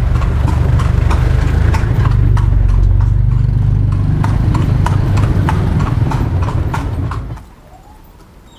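Horse-drawn carriage ride: the horse's hooves clip-clopping steadily over a loud low rumble. It cuts off suddenly near the end.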